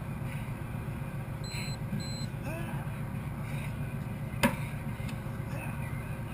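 Two short electronic beeps from an interval timer, half a second apart, about a second and a half in, marking the switch between Tabata work and rest intervals, over a steady low rumble. A single sharp knock a little after four seconds in as the sandbag is heaved onto the shoulder.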